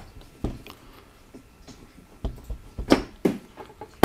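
Scattered knocks and clicks of a soldering iron being switched off and put away, the loudest a sharp knock about three seconds in.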